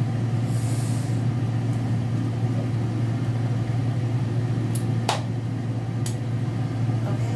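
A steady low hum, with a brief plastic rustle about half a second in and a few sharp clicks around five to six seconds in.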